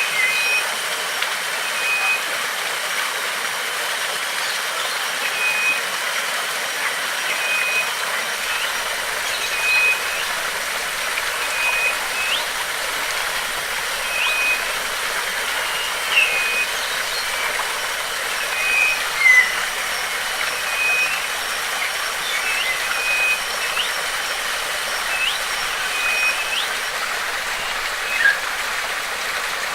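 Running water of a stream or waterfall rushing steadily, with a bird repeating a short whistled note every second or two among brief rising chirps. A thin, steady high whine runs over it.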